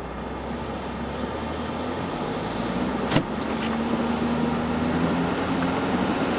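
Truck running as it tows a sled over snow, its engine and tyre noise growing steadily louder as it picks up speed. A single sharp click about three seconds in.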